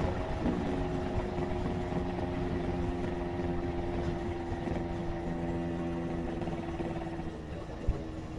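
Motorcycle engine running at a steady speed while riding, over wind and road noise. The engine note drops slightly near the end, and a single sharp click comes just before the end.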